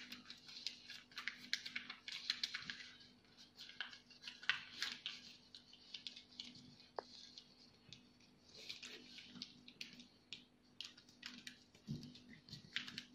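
Origami paper rustling and crackling as it is folded and creased by hand: many short, scattered crinkles, sparser for a couple of seconds midway.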